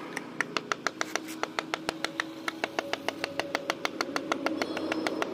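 Rapid, even taps of a hammer's wooden handle end on marble pieces, bedding them into wet mortar, about six knocks a second. A faint steady hum runs underneath.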